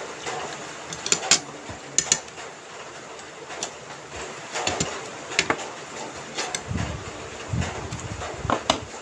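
Metal forks clicking against a ceramic plate as banana cue is picked up and eaten, a handful of sharp clicks spread out, some in quick pairs.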